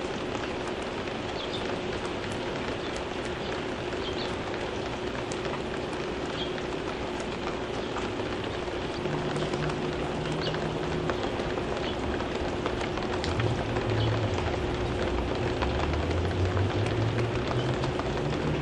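Steady rain falling on leaves, with scattered short high chips from small birds such as hummingbirds and finches. About halfway through a low drone comes in and grows louder toward the end.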